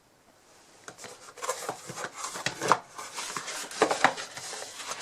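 Small cardboard multimeter box being opened and its contents handled: irregular rubbing and scraping with light clicks and knocks, starting about a second in.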